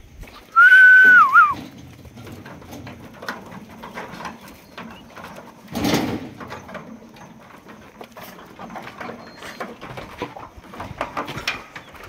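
Lambs moving about a pen, their hooves making scattered faint knocks and scuffs on wood and ground, with one louder thump about six seconds in. About half a second in comes a single high, steady call lasting about a second that wavers and drops at its end.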